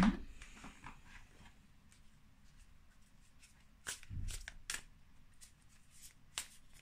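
Oracle cards being handled on a wooden table: a sharp tap at the start, then sparse light clicks of cards and a soft thump about four seconds in as a deck is picked up and shuffled.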